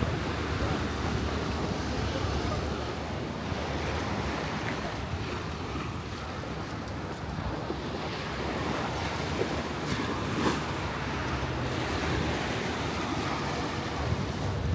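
Steady rushing noise of wind, with the fluttering low rumble of wind buffeting the microphone.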